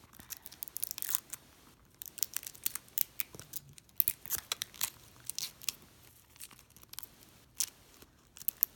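Thin protective plastic film being picked and peeled off a handbag's metal clasp: irregular crinkling and small sharp clicks of fingernails on film and metal, with a couple of louder clicks near the end.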